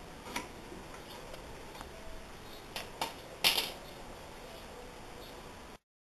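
A few light clicks and knocks of tools or material being handled, the loudest about three and a half seconds in.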